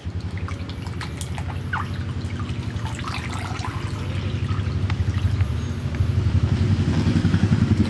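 Water splashing and dripping as cut snakehead fish pieces are rinsed by hand in a bowl of water and lifted out, water running off them back into the bowl. Under it a low pulsing rumble grows steadily louder.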